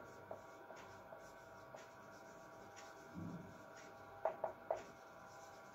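Marker pen writing on a whiteboard: faint scratchy strokes, with three short louder strokes a little past the middle.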